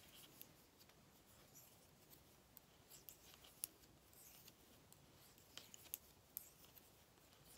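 Knitting needles clicking faintly as stitches are worked, scattered sharp ticks against near silence, with a couple of louder clicks around the middle and just before the end.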